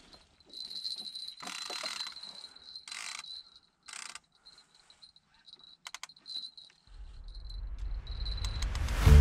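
Short rustling and clattering bursts and a few sharp clicks as fishing rods and reels are handled and set up among rocks, with a faint high steady tone underneath. Near the end a low swell rises and grows loud as background music comes in.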